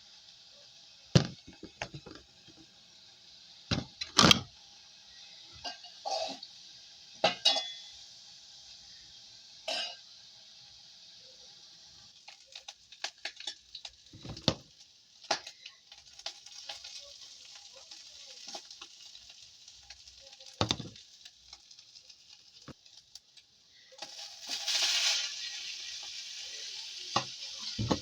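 Small omena fish dry-frying in a pan over a gas flame. A spoon knocks and scrapes against the pan in separate sharp strikes, then a steady sizzle with light crackling sets in and grows much louder near the end.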